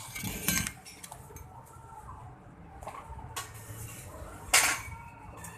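Metal clattering and scraping in short bursts, with the loudest clatter near the end.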